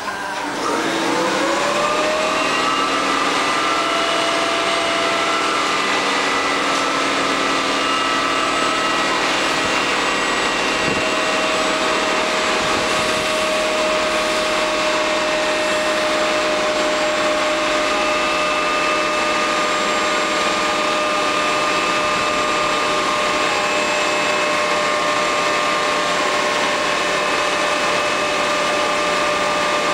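TGV PSE power car's on-board compressor starting up, its whine rising in pitch over the first second or two and then running steadily with a layered, multi-tone whine.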